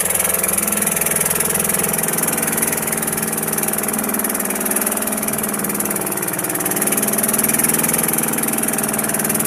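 Small wooden motorboat's engine running steadily under way, a constant drone with a high hiss over it.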